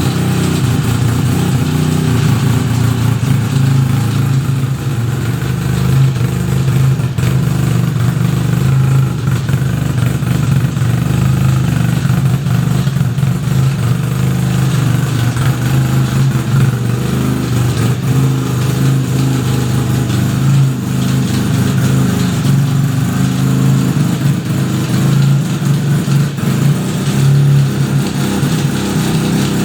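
1975 Suzuki RE5's single-rotor Wankel rotary engine running steadily. Mixed in is the strange noise from the transmission that the owner found on starting it after restoration.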